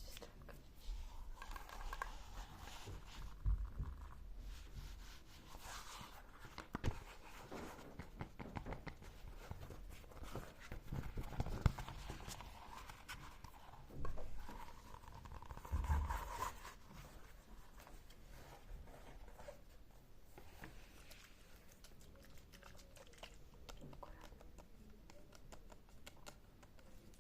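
Soft, irregular handling sounds of ASMR triggers: rustling and scratching with light taps and clicks. A few louder thumps come about a third of the way in, near the middle, and a little past the middle.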